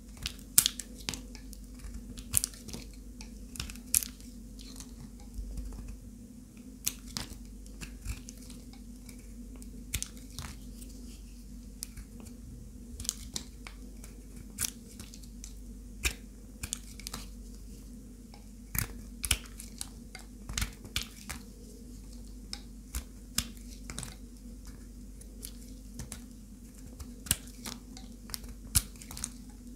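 A knife cutting through dry, crumbly bar soap: irregular sharp crunches and cracks, some close together, over a faint steady hum.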